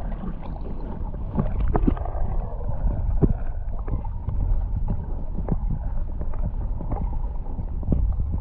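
Water heard through a submerged action camera: a steady low rumble of moving water with the highs cut away, and scattered clicks and knocks.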